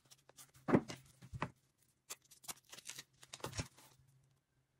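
Hands handling a high-heel shoe and a Shoe Gummi gel heel pad while fitting the pad: scattered soft knocks, clicks and rustles. The loudest are three knocks, one under a second in, one about a second and a half in, and one about three and a half seconds in.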